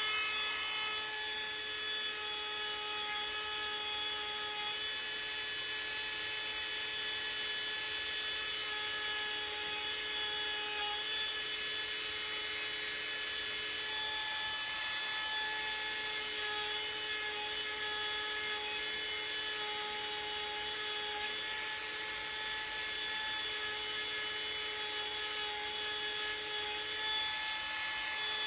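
Small electric power tool sanding tulsi wood beads, its motor running with a steady whine.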